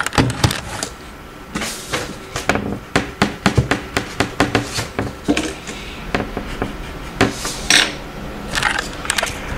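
A rubber eraser rubbing writing off paper on a desk, in quick, irregular strokes with small knocks against the desk.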